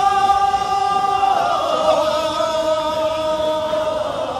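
Male voices singing kiyari, the traditional Edo work-song chant, in long drawn-out high notes with wavering ornaments; the pitch steps down about one and a half seconds in.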